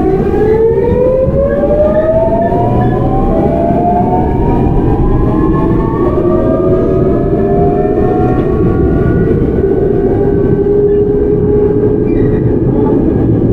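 Seoul Metro 8000 series train's GEC Alsthom GTO-VVVF traction inverter whining as the train accelerates. Several tones glide upward together through the first several seconds, then settle into one steady tone that fades near the end, over the steady rumble of the train running on the rails.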